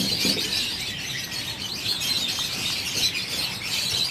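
Many caged birds chirping and chattering at once, a continuous dense twittering with no pauses.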